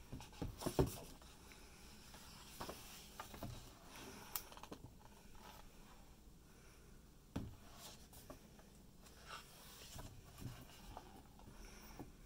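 Pages of an art book being turned and handled: faint paper rustles and light taps, loudest about a second in and again a little after seven seconds.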